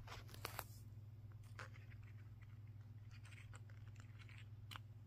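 Faint scattered clicks and rustles of hands handling a small paper engine model, over a steady low hum.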